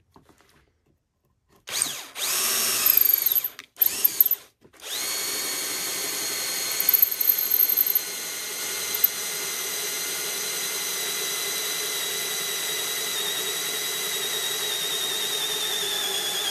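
Cordless drill boring a bolt hole through an oak deck board into the steel frame beneath. The motor spins up with a rising whine about two seconds in, stops twice briefly, then runs steadily under load, its pitch sagging slightly near the end.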